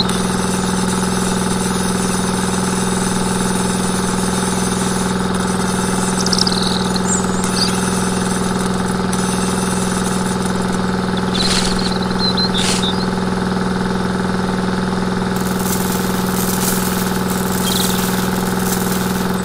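Small electric motor of a miniature rice-hulling machine running at a steady speed with an even hum, with a few faint clicks from the grain being processed.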